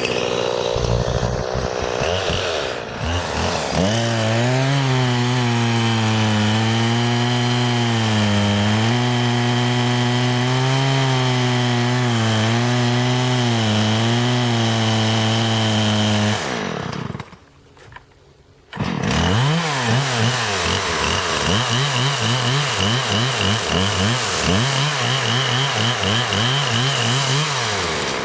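Chainsaw running and cutting through tree wood, its engine pitch sagging and recovering under load. The sound drops out briefly about two-thirds through, then returns with the engine note swinging up and down again and again.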